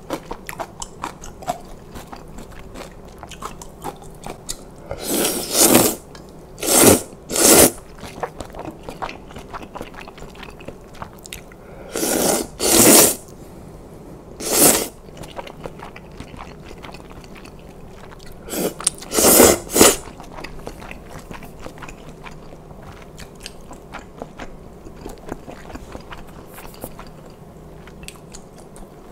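A person slurping spicy kalguksu noodles in several loud bursts that come in three clusters, with close-miked chewing and small wet mouth clicks in between.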